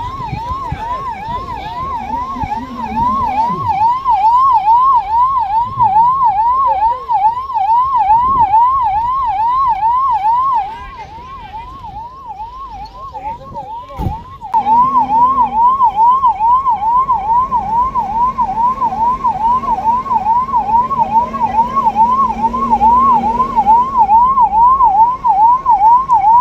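Electronic emergency-vehicle siren in a fast yelp, sweeping about two and a half times a second. It fades for a few seconds about eleven seconds in and comes back loud. A single sharp knock sounds just before it returns.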